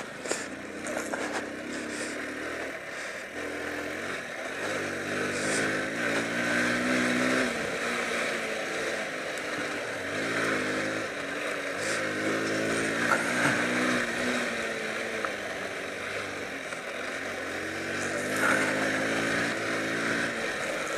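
Honda C90's small single-cylinder four-stroke engine running as the bike is ridden over a rough dirt trail, its revs rising and falling several times as the throttle is opened and closed. There is a sharp knock about two-thirds of the way through.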